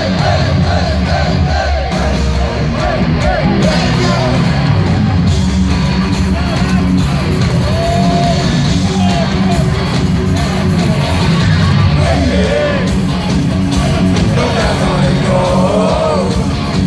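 A live heavy metal band plays loudly through a concert sound system, mixed with a crowd's yelling and singing.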